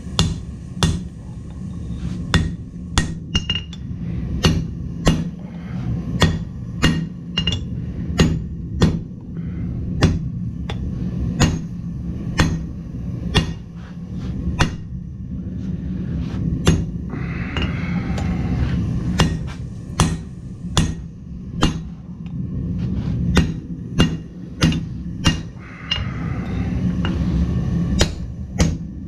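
Blacksmith's hammer striking hot steel on an anvil in a steady forging rhythm, about one and a half blows a second, over a steady low hum, with a brief pause about two-thirds of the way through.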